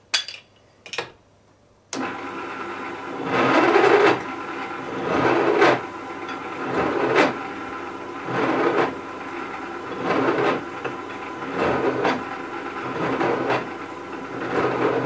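Two short knocks, then a pillar drill's motor starts abruptly about two seconds in and keeps running. A countersink bit chamfers the edges of drilled holes in metal, and the cutting swells louder about every second and a half.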